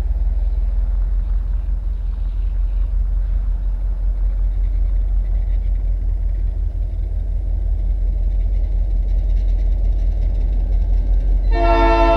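A steady low rumble as a diesel freight train approaches, then near the end its locomotive air horn starts to blow, a loud chord of several steady tones.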